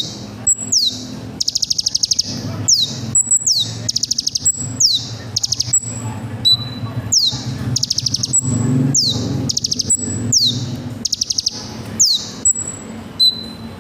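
Kolibri ninja sunbird song used as a lure recording: high, rapid trills alternating with sharp whistles that sweep downward, phrase after phrase about every second. A low steady hum lies underneath.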